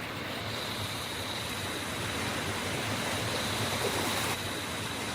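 Steady rushing of flowing floodwater, dropping slightly in level about four seconds in.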